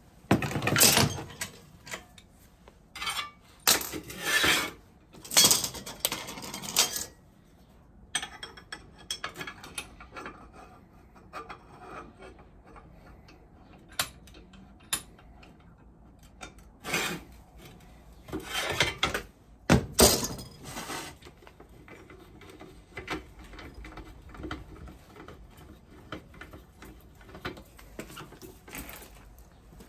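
Metal tools and parts clattering and being rummaged through in irregular bursts of a second or so, with scattered clicks and knocks between.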